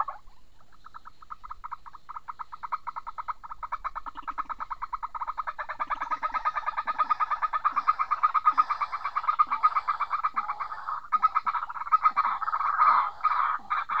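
An animal calling in a rapid, steady pulsed trill, louder from about halfway and broken into shorter bursts near the end, with faint short low notes beneath it.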